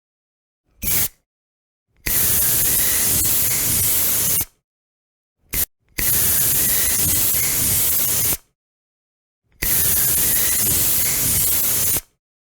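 Aerosol spray hissing in bursts: a short puff, a long spray of about two and a half seconds, another short puff, then two more long sprays of the same length.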